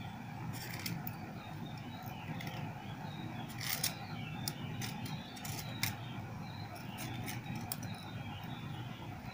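Faint handling noise of fingers winding thread around a rod guide seated on a plastic pen: small scattered clicks and rubs, over a steady low hum.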